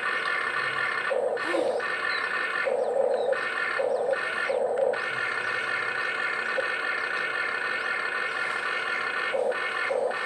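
Electric motors and gearboxes of a Huina 1592 remote-control excavator whining steadily as the boom, arm and bucket work. The whine breaks and changes tone for a moment each time a function starts or stops: several times in the first five seconds and twice near the end.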